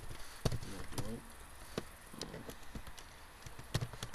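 Computer keyboard being typed on: irregular key clicks, a few of them sharp, at an uneven pace.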